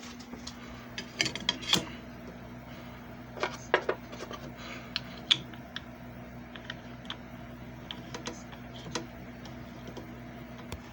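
JFJ Easy Pro disc repair machine running with a steady low hum, under scattered plastic clicks and knocks, heaviest about a second in and again near four seconds.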